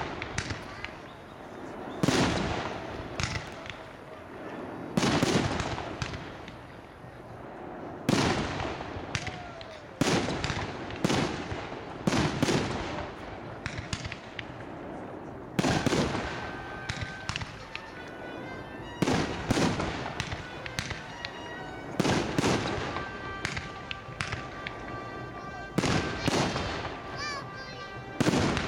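Aerial firework shells bursting overhead: a string of loud bangs, roughly one every second or two, each trailing off in an echo.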